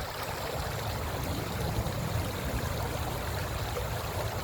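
River water rushing past: a steady, even wash of noise.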